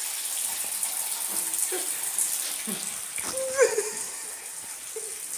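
Shower water running, a steady hiss.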